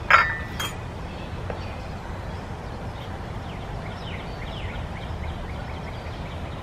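Small porcelain teaware clinking: one sharp ringing clink just after the start and a lighter click about half a second later, with faint high chirping in the background.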